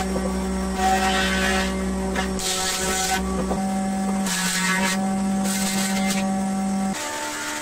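Jointer (surface planer) running with a steady motor hum while pine beams are passed over its cutterhead: four short bursts of planing noise, each under a second, as the blades bite into the wood. Near the end the hum stops and a different, lighter machine sound takes over.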